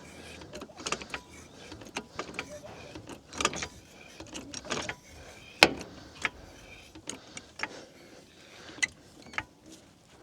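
Floor jack being positioned and worked under a car: irregular metal clicks, clanks and short scrapes, with one sharp knock a little past halfway.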